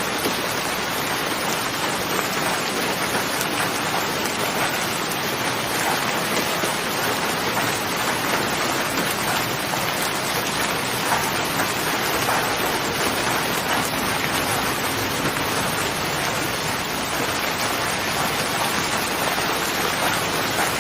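Steady, heavy rain falling, a dense even hiss of drops with fine patter throughout.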